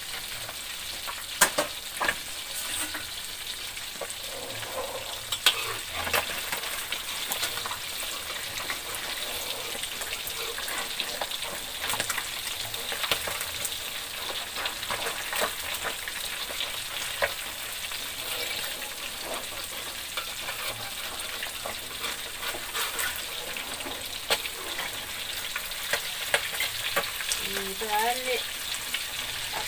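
Whole catfish deep-frying in a wok of hot oil: a steady sizzle with constant crackling and spattering pops, two of them sharper about one and a half and five and a half seconds in.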